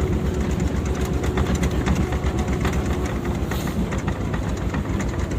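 Engine of a heavy off-road vehicle running steadily, with a rapid, even low pulsing.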